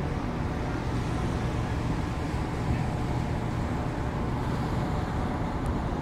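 Steady low rumble of the Hellenic Spirit passenger ferry's engines heard from the open deck as she gets under way, with wind across the deck.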